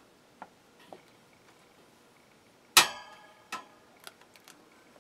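Wire guards of a 12-inch table fan clicking and tapping as the front guard is worked onto the back guard's rim by hand, with one loud snap and a brief ring about three seconds in.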